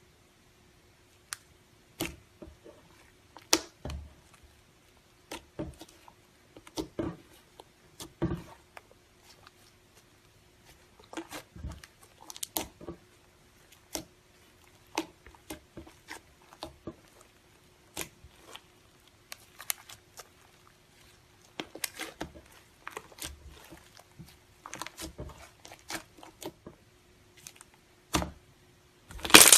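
Slime being squished and stretched by hand, giving scattered sticky clicks and small pops at an uneven pace, with a louder burst of crackling at the very end. A faint steady hum runs underneath.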